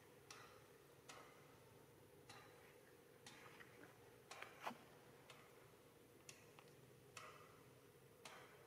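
Near silence broken by faint, sharp clicks, about one a second but unevenly spaced, over a faint steady hum.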